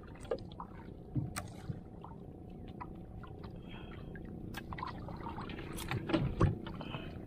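Water lapping against a small outrigger boat's hull, with scattered light clicks and a few louder knocks from pliers and a metal jig as a hooked fish is unhooked in the fish hold.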